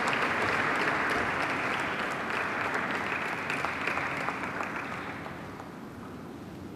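Audience applauding, the clapping fading away over the last two seconds or so.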